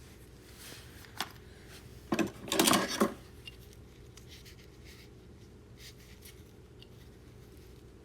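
Small metal hand tools being handled and set down: a single click about a second in, a short clatter of knocks between two and three seconds in, then faint light clicks.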